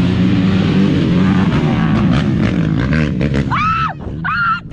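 Race ATV engines running at full throttle as quads pass along the course, loud and steady. Then, from about three and a half seconds in, the engine noise drops and a person gives a few high-pitched yells.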